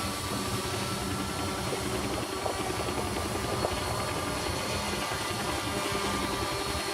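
RC quadcopter running: a steady engine-like drone with a few held tones throughout.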